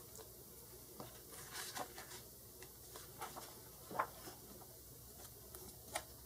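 Faint paper rustling and soft taps as a picture book's page is turned and smoothed flat by hand, with a sharper tap about four seconds in.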